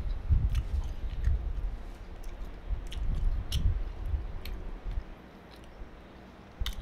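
A person chewing slices of dried mullet roe (karasumi) close to the microphone: soft, irregular chews with small wet mouth clicks. The chewing dies away about five seconds in.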